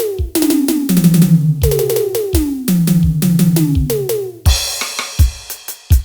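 Electronic drum sounds from a Roland SPD-30 Octapad preset: steady kick-drum hits under repeated pitched tom-like notes that each drop in pitch, with a cymbal crash about four and a half seconds in.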